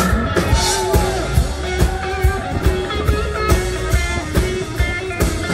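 Rock-style music: guitar over a steady beat of about two hits a second, with a singing voice gliding through a line near the start.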